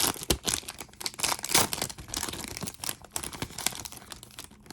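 Trading card pack wrappers being torn open and crinkled by hand, an irregular run of crackles and rips that is loudest about a second and a half in.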